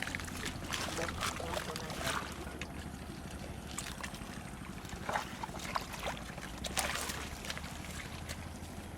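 Shallow water sloshing and splashing in short, irregular spurts over a steady low rumble.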